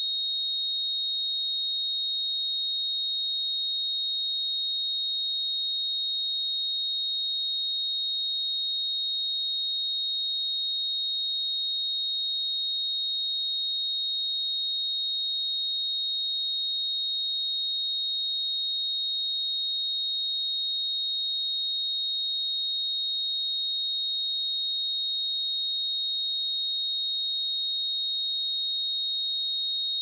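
A single pure 3741 Hz sine-wave test tone, held steady at one pitch and level.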